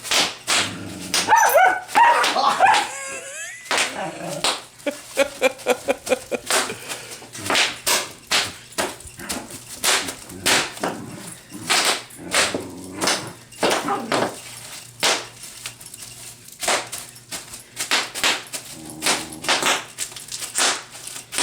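Bubble wrap popping and crackling under a dog's bite: many sharp pops and crinkles in quick, irregular succession. A few whines and barks from the dog come in between, most of them in the first six seconds.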